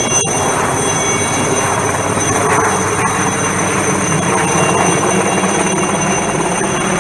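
Alouette III helicopter flying low overhead with a water bucket slung beneath it: steady rotor and engine noise with a high, even turbine whine from its Turbomeca Artouste turboshaft.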